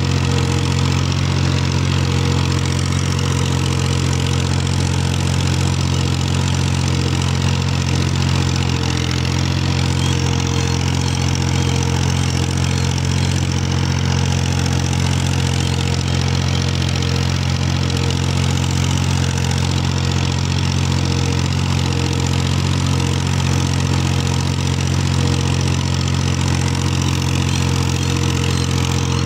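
Farm tractor's diesel engine running steadily while it works a ploughed field, heard close to its upright exhaust.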